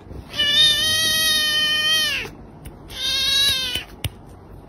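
Kitten meowing: one long high meow of about two seconds that drops in pitch as it ends, then a shorter meow about a second later. A brief tap follows near the end.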